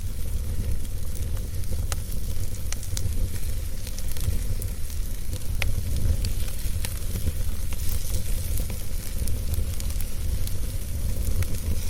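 Wood fire crackling in a fireplace: a steady low rumble with scattered sharp pops and crackles at irregular intervals.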